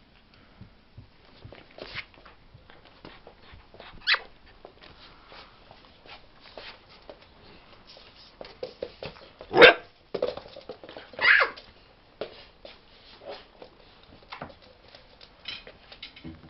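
Puppies playing, with a few short barks; the loudest comes near the middle, with others about four seconds in and a little after the loudest. Small scuffling clicks run between them.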